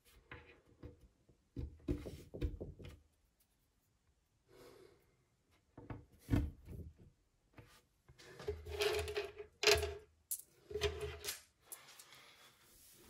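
Hands working on a white melamine cabinet panel with shelf-pin holes: irregular rubbing and scraping on the board with dull knocks, in short bursts, the loudest run about two-thirds of the way through.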